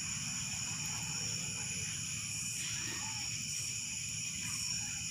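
Steady chorus of night insects, crickets trilling at several high pitches at once, over a faint low hum. In the second half a rasping call stands out about once a second.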